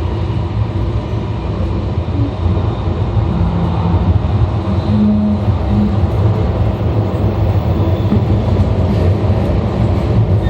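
E2 series Shinkansen running at speed, heard from inside the car's vestibule: a steady, dense low rumble of wheels and running gear. Brief humming tones come and go in the middle.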